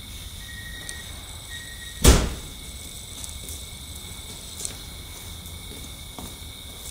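A car door slammed shut once, about two seconds in, followed by a few light clicks, over a faint steady high-pitched tone.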